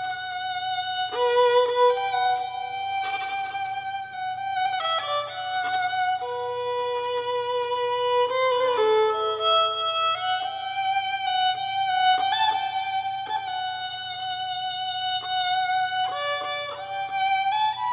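Solo violin playing a slow bowed melody of long held notes.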